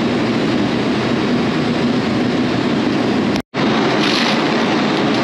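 Steady rumble and hiss of a moving vehicle's road noise. It breaks off completely for an instant about three and a half seconds in, then carries on unchanged.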